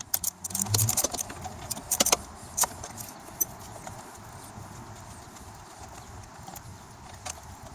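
Tools and small metal parts clinking and knocking during hand work on a lawn mower engine. There is a quick flurry of sharp clicks in the first three seconds, then a few single clicks over a steady low background.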